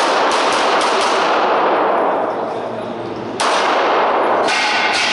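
Semi-automatic service pistol firing a stage course in an indoor range. A quick string of shots comes in the first second; after a pause of about two seconds, more shots follow from about three and a half seconds in. Each shot carries a long echo off the hall.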